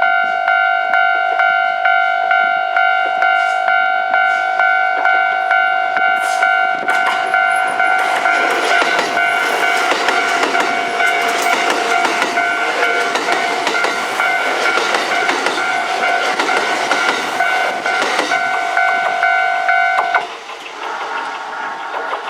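A level-crossing warning bell rings in a steady, repeating pulse. A Kintetsu express of 5211-series and 1253-series cars runs through the crossing in the middle, its wheels clacking over the rail joints. The bell cuts off shortly before the end, leaving a quieter, different tone.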